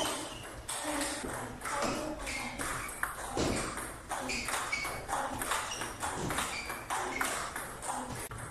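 Table tennis ball clicking off rubber paddles and the table in a rally: a steady run of sharp, short ticks with a light ping.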